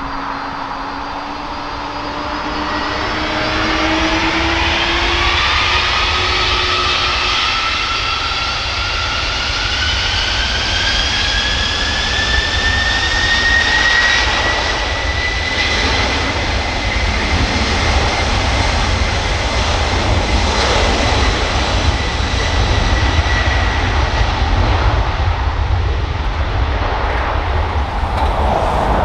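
Twin turbofan engines of a DHL Airbus A300 freighter spooling up to takeoff power: a whine rises steadily in pitch over roughly the first fourteen seconds, then holds steady over a loud jet roar through the takeoff roll.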